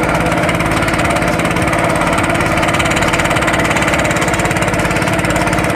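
An engine running steadily at an even speed, with a fast regular firing pulse.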